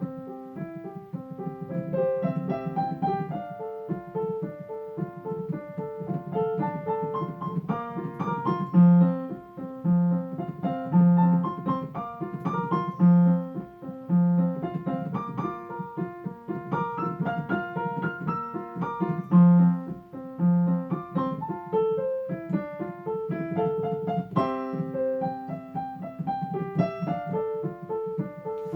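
Instrumental piano music, on an electric piano sound, playing a slow melody over sustained low notes.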